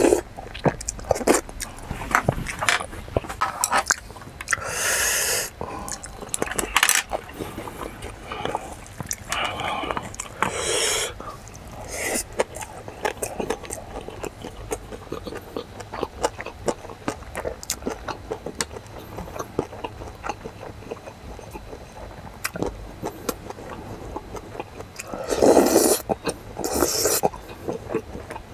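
Close-up eating sounds: a man chewing mouthfuls of mixed rice, with a wooden spoon clicking and scraping against a stainless steel bowl. A few loud breaths break in, the loudest near the end.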